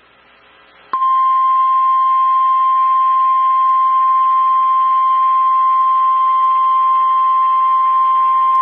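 NOAA Weather Radio's 1050 Hz warning alarm tone: one loud, steady single-pitched tone that starts about a second in and holds. It is the alert signal that comes before a broadcast emergency message, here a tornado watch.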